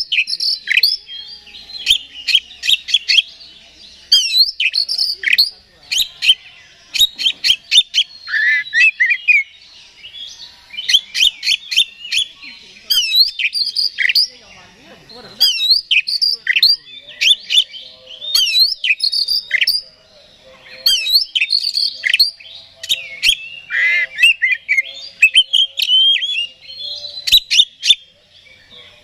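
Oriental magpie-robin (kacer) singing loudly and almost without pause, a varied song of sweet whistles, slurred rising and falling notes and rapid sharp clicks, in bursts separated by short breaks. It is the full, worked-up song kept as a lure to provoke other magpie-robins into singing.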